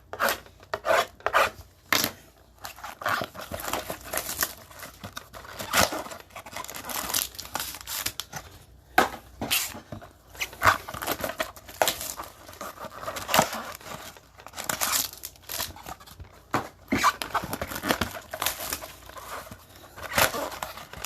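Crinkling and tearing of plastic wrap and rubbing of cardboard as a sealed box of trading card packs is unwrapped and its packs handled, in quick irregular crackles and scrapes.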